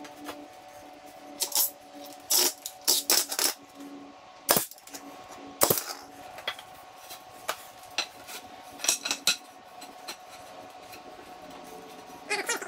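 Wooden boards of a pressure-treated door frame knocking and clattering on a concrete floor as they are shifted and squared by hand. It is a scattered series of sharp knocks, the two sharpest near the middle and a quick cluster about three-quarters through.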